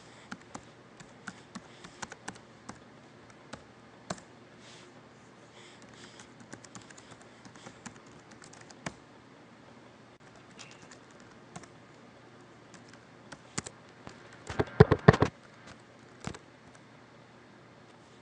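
Typing on a computer keyboard: scattered keystrokes, then a quick run of louder key presses about three-quarters of the way through.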